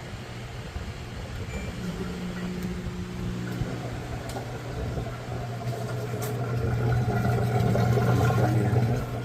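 Newly installed drain pump in a Kenmore washer running in diagnostic mode: a steady motor hum that grows louder over the last few seconds and cuts off near the end.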